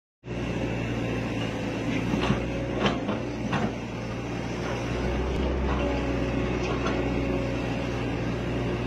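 Hitachi excavator's diesel engine running steadily, heard from inside the operator's cab, with a few short clunks between about two and four seconds in.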